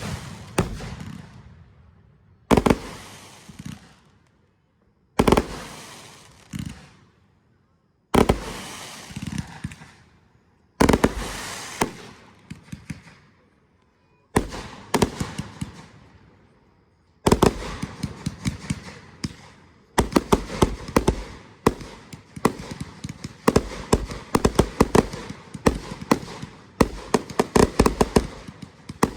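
Fireworks going off: single aerial shells burst about every three seconds, each a sharp bang followed by crackling that trails away. A little past halfway through this turns into a dense, rapid barrage of bangs and crackles.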